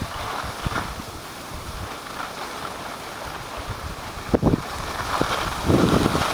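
Skis sliding and scraping over packed snow, with wind rushing over the microphone of the moving skier. There are two louder rushes, about four and a half and six seconds in.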